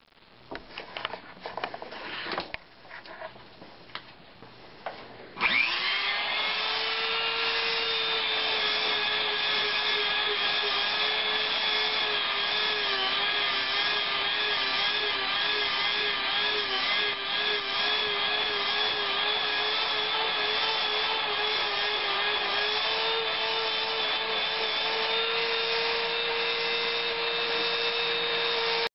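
A few handling clicks and knocks, then about five seconds in a small high-speed rotary tool spins up and runs steadily with a high whine, its pitch wavering slightly as it works.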